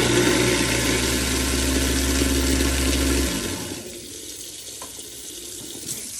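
Garbage disposal motor running with hot tap water flowing through it to clean the blades; the motor hum stops about three seconds in, leaving the tap water running into the sink.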